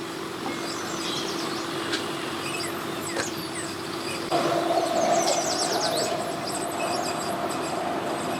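An engine running steadily with a humming drone, a second, higher tone joining about four seconds in as it gets louder. Birds chirp over it.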